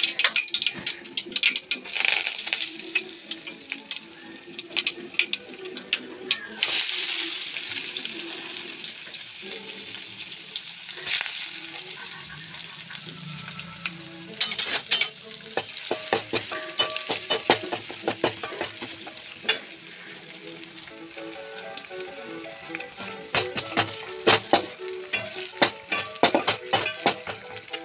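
Oil sizzling in a steel pan as a tempering of mustard seeds, dried red chillies, chopped onions and curry leaves fries. The sizzle jumps louder suddenly three times as more goes into the hot oil, and in the second half a spoon clicks and scrapes against the pan as the mixture is stirred.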